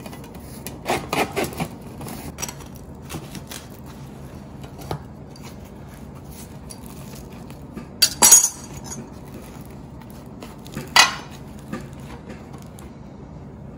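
Light taps and clinks of a metal utensil against a ceramic platter while bread is handled, with two louder clatters, about eight and eleven seconds in.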